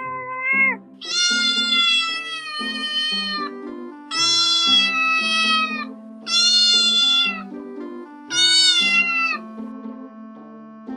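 Kitten meowing over background music: a short meow at the start, then four long, high-pitched meows about two seconds apart.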